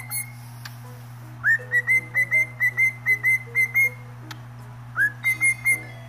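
Cockatiel whistling: a rising note about a second and a half in, then a quick run of about a dozen short repeated whistles, and a second rising note with a shorter run of three or four near the end.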